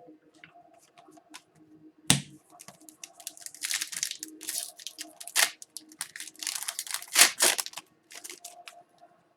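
Hockey card pack and cards being handled: irregular crinkling and rustling of the pack's foil wrapper being torn, with sharp snaps about two seconds in and again around seven seconds.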